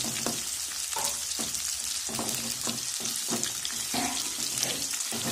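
Chopped small onions (shallots) sizzling in hot oil in a metal kadai, stirred with a metal ladle that scrapes against the pan several times. The onions are being sautéed until they colour.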